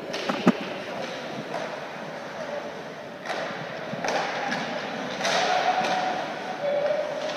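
Ice hockey play in an arena: sharp stick and puck knocks about half a second in at a faceoff, then spectators' shouts swelling from about three seconds in as play rushes toward the net.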